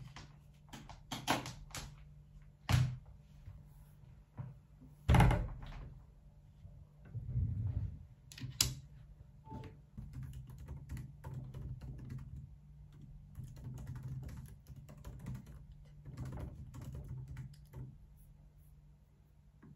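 Several separate thunks and knocks of someone settling in at a desk, the loudest about five seconds in, followed by quick light clicking of typing on a MacBook laptop keyboard through the second half.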